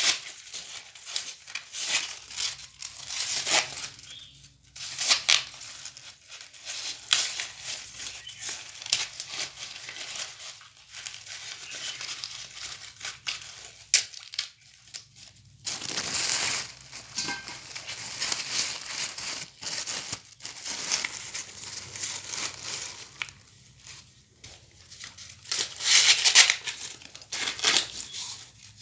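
Corn leaves and husks rustling, crinkling and tearing as ears of corn are handled and picked by hand, in irregular bursts, louder about halfway through and again near the end.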